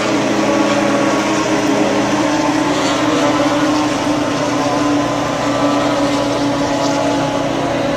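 Racing snowmobile engines running flat out around the track: an overlapping steady drone of several engines at different pitches, with one lower tone dropping away about two seconds in.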